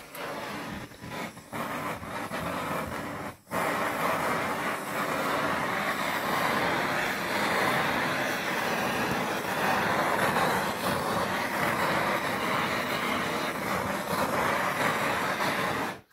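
Handheld gas torch burning with a steady hissing flame. It cuts out briefly about three and a half seconds in, then burns on until it stops near the end.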